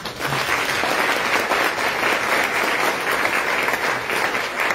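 Audience applauding, many hands clapping together. It starts suddenly and stays at an even level.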